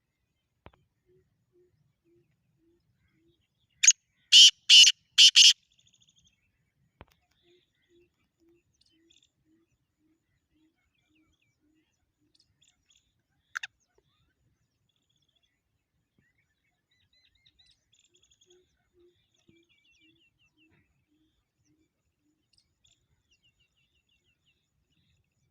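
Black francolin calling: one loud harsh call of four quick notes about four seconds in, and a single short sharp note near the middle. Between them come three faint runs of low, evenly spaced notes that drop slightly in pitch.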